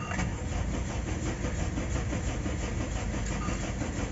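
Third-generation Honda CR-V's starter cranking the engine at an even, rapid pulse without it catching: a crank-no-start with no fault codes, which the mechanic traces to low fuel pressure.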